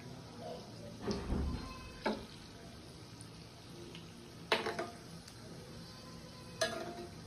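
Metal slotted spoon clinking against a steel frying pan four times, with ringing, as cheese corn balls are turned while deep-frying in oil over a low, steady frying sizzle.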